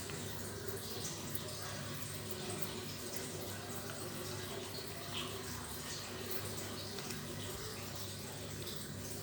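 A cat licking and lapping ice cream, a run of small wet ticks over a steady low background hum.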